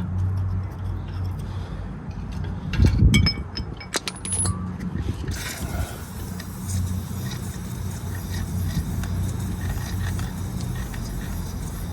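Hand tools knocking and clinking on metal: a heavy thump about three seconds in, then several sharp ringing clinks, over a steady low hum.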